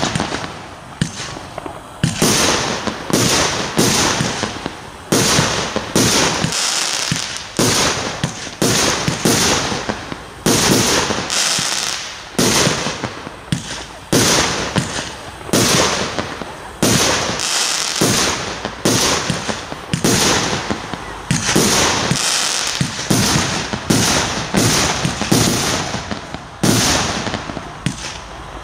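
Fireworks bursting in the air in a fast, continuous series, a sharp bang roughly once a second, each dying away before the next.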